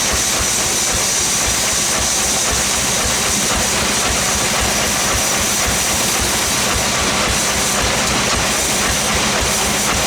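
Sawmill machinery running steadily, with an engine pulsing low beneath a steady high-pitched whine and hiss from the saw.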